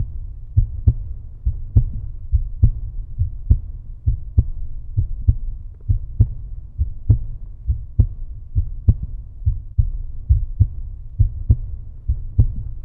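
Outro music: a steady, repeating low beat carried by bass and drum, with no other sound above it.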